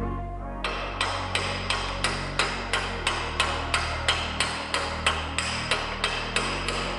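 Hammer blows on a steel drift held to the centre of a car's wheel hub, metal on metal. About eighteen even strikes come at roughly three a second and stop shortly before the end.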